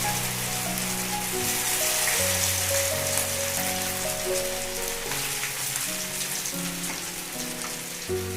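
Batter-coated chicken pakoras sizzling steadily as they deep-fry in hot oil in a kadai. Background music plays alongside.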